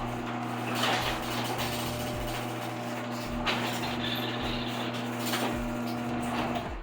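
Electric garage door opener running as the sectional door travels up, a steady hum with several clunks from the door and its rollers, stopping abruptly near the end.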